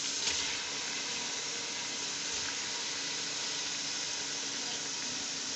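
Raw beef pieces sizzling in hot oil with garlic-ginger paste: a steady frying hiss as the meat starts to sear.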